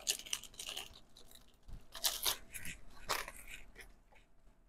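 Clear plastic packaging sleeve crinkling and rustling in short bursts as a card is pulled out of it.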